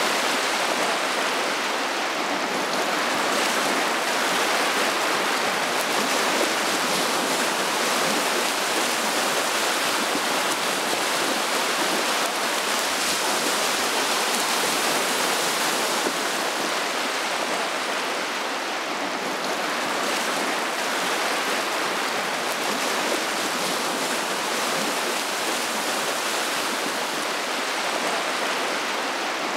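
Small waves washing steadily over a shallow river sandbar: a constant rushing hiss with no breaks.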